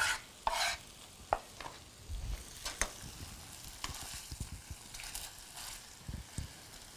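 Glazed chicken breasts sizzling softly in a skillet, with scattered clicks and taps as they are turned in the pan. Near the start, a few strokes of a chef's knife on a plastic cutting board.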